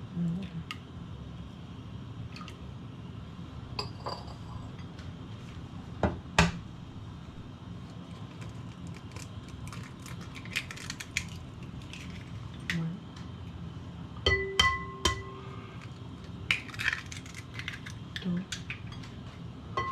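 Kitchen utensils knocking and clinking against bowls and dishes, scattered taps with a few louder strikes that leave a short ringing tone, over a steady low hum.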